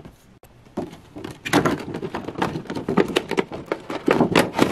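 Clear plastic packaging crinkling and crackling as hands handle a boxed figure in its plastic wrapping: a few light clicks at first, then dense crinkling from about a second and a half in.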